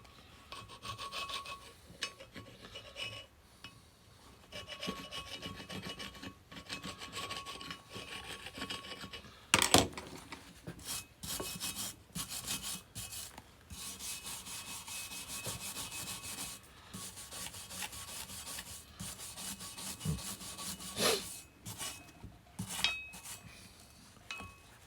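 Hand wire brush scrubbing caked dirt and crud off a Kurt milling vise, in spells of quick back-and-forth strokes with pauses between. A sharp knock comes about ten seconds in, and a few lighter knocks later on.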